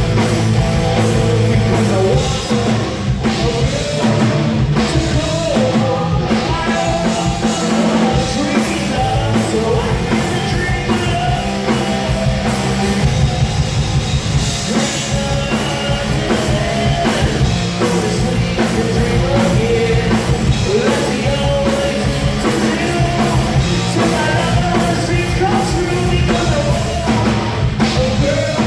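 Punk rock band playing loud, with drums and singing.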